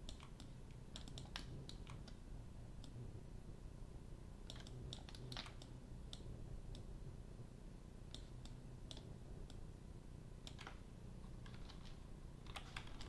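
Computer keyboard keys and mouse buttons clicking at irregular intervals, some in quick little clusters, over a faint steady low hum.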